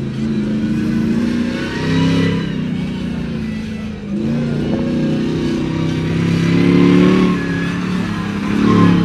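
Monster truck engine revving, its pitch rising and falling again and again as it accelerates and eases off, louder around the middle and near the end.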